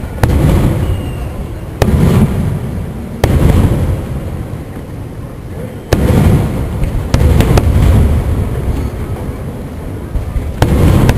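Aerial firework shells bursting overhead: a string of sharp booms, about seven in all, coming every one to three seconds, each trailing off in a low rolling rumble.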